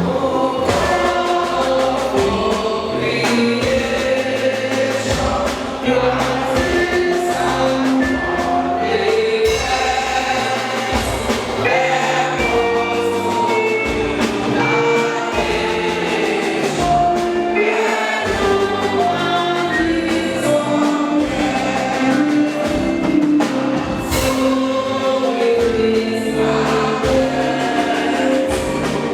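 Many voices singing together in chorus over instrumental accompaniment with a steady beat: a national anthem sung by the standing assembly.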